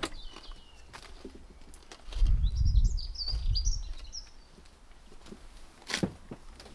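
A low rumble on the microphone for about two seconds, with a small bird chirping over it, and a sharp click at the start and another near the end.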